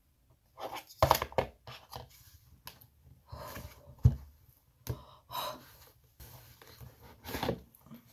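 Cardboard speaker packaging being handled and opened: short, irregular rustles and scrapes, with sharp knocks about one second and about four seconds in, the second the loudest.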